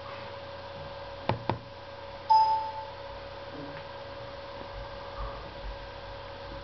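Two quick taps on a tablet PC's touchscreen, then about a second later a short electronic chime that fades within half a second, over a steady faint electronic hum.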